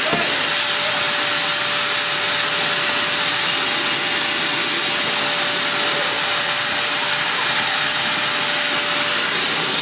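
A vacuum cleaner running steadily, with a constant motor whine over its rushing suction, its hose cleaning out a car's interior.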